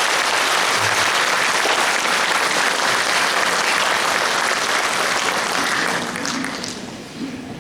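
Concert audience applauding, the applause dying away about six seconds in.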